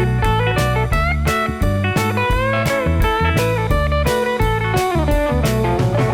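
Background music: a bluesy guitar tune with a steady beat.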